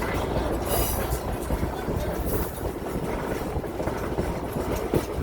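Heritage passenger train running along the track, heard from on board: a steady low rumble with a scatter of small rattles and clicks from the wheels and car.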